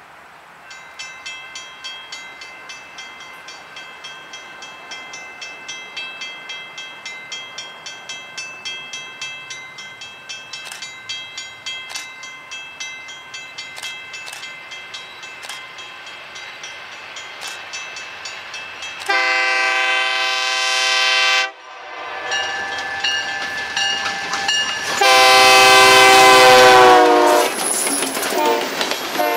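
A pulsing ringing, about two to three strikes a second, grows slowly louder as EMD GP35 locomotive GLC 393 approaches at speed. About nineteen seconds in, the locomotive's horn sounds a blast of about two seconds that cuts off sharply. A second, louder blast follows about six seconds later, and wheel noise over the jointed rail comes in as the locomotive passes close by.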